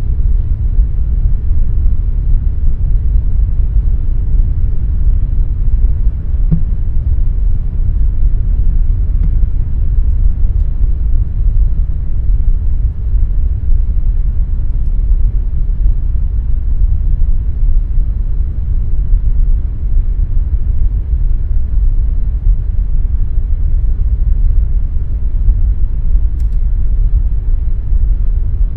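Air conditioner running steadily: a constant low rumble with a softer hiss above it.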